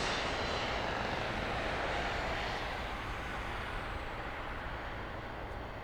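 Jet noise from a Cessna 650 Citation III business jet's twin turbofan engines: a steady rush that slowly fades, its high hiss dying away over the seconds.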